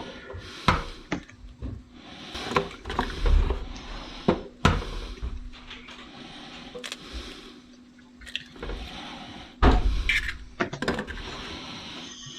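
Raw bacon pieces being laid and spread by hand over a pastry-lined pie dish: irregular soft knocks and clicks of handling, busier about three seconds in and again near the end.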